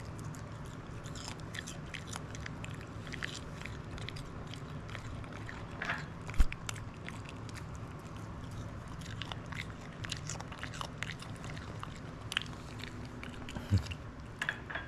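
A Shih Tzu crunching and chewing pieces of cucumber fed from a hand, many short crisp bites. A single sharp knock about six seconds in.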